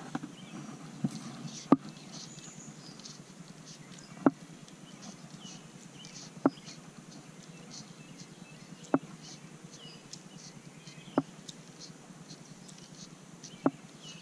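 Fly line being stripped in short pulls to work a topwater popper: a sharp tick with each pull, six in all, about every two and a half seconds, over a faint background of small high chirps.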